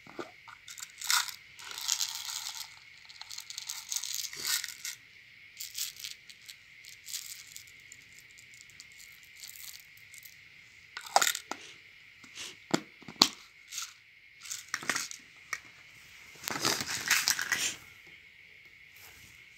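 Small plastic rhinestones and crumbly topping being shaken out of containers onto slime: rattling bursts and scattered sharp clicks as the pieces hit the slime and the card beneath it.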